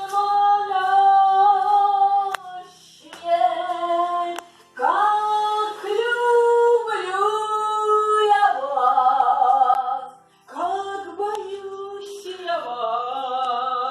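A high female voice singing a melody in long held notes, phrase by phrase, with short breaks between phrases.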